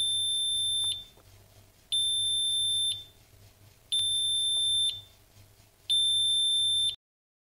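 Electronic alarm beeper sounding four long, high beeps, each about a second long and repeating every two seconds.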